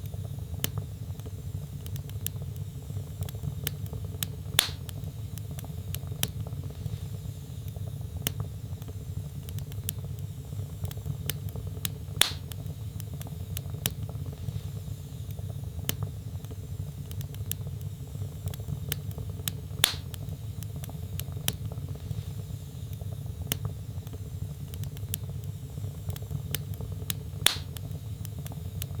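Wood fire burning in a fireplace: a steady low rumble of the flames with a constant light crackle of small snaps. Four louder pops from the burning logs come evenly spaced, about every seven and a half seconds.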